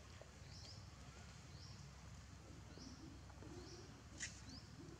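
Faint background with a bird's short rising chirps repeating every half second to a second, and one sharp click about four seconds in.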